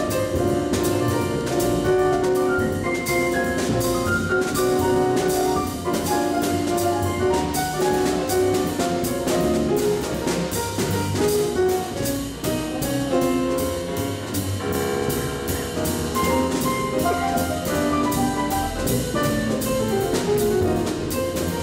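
Live jazz combo: grand piano playing a busy solo line over double bass and a drum kit, with a cymbal ticking out a steady pulse.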